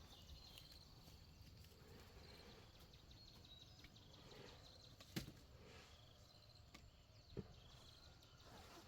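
Near silence: faint outdoor background with two short soft knocks, one about five seconds in and one about seven seconds in.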